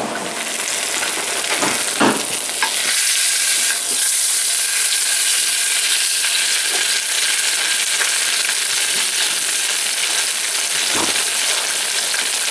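Salmon fillet pan-frying in hot oil: a steady, high sizzle, with a few faint knocks.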